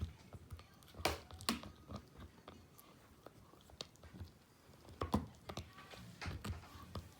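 A Shiba Inu gnawing on a Kamikami Bone dog chew: irregular crunching bites and teeth clicks, strongest about a second in and again around five seconds in.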